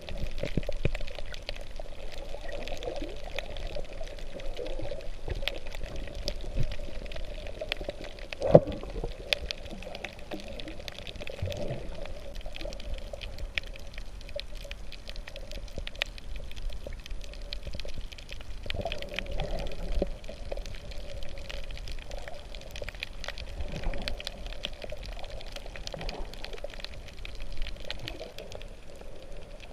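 Water heard underwater: a muffled, steady swishing and gurgling wash that swells and fades, with scattered faint clicks and one sharper knock about eight and a half seconds in.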